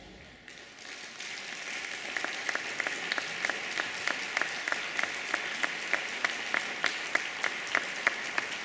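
Audience applauding, swelling about a second in. From about two seconds in, sharp claps in a steady rhythm, about three a second, stand out over the general applause.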